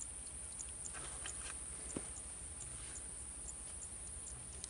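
Faint, steady high-pitched insect buzz with short high chirps repeating about two to three times a second, and a few soft knocks around a second in.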